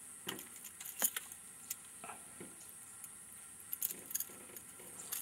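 Scattered light metallic clicks and clinks of a fishing lure's hooks and pliers as a small snook is held up and unhooked. A steady high hiss runs underneath.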